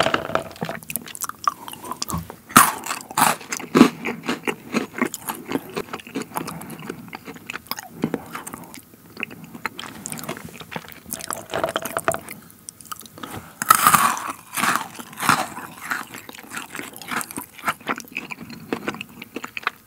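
Close-miked chewing and crunching of Maltesers, the crisp malted-milk centres cracking in quick, irregular crunches. There are louder bursts of crunching a few seconds in and again about two thirds through.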